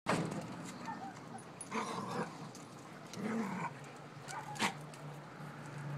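Dogs scuffling in rough play: one dog growling while another whimpers, in several short bouts.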